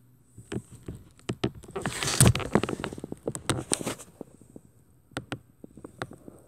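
Rustling and clicking handling noise from a hand-held camera being moved, a dense run of clicks and scrapes peaking about two seconds in, then a few scattered clicks.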